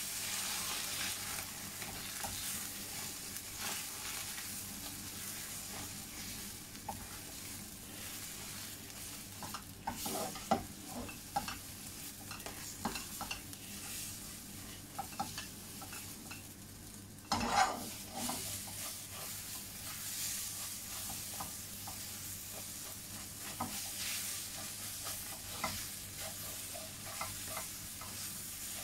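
Beaten eggs sizzling in a lightly oiled non-stick pan, stirred and scraped with a silicone spatula as they set into scrambled pieces. The scrapes come in scattered clusters over the steady sizzle, the loudest about 17 seconds in.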